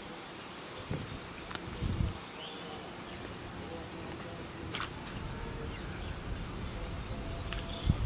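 Steady high-pitched drone of insects, with faint voices and one sharp click a little past halfway.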